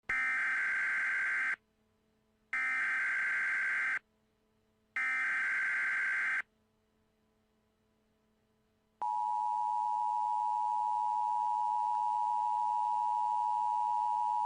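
Emergency Alert System SAME header: three identical bursts of data tones, each about a second and a half long with a second of silence between them. After a pause of about two and a half seconds, the steady two-tone EAS attention signal starts and holds. Together they mark the start of a new emergency alert bulletin.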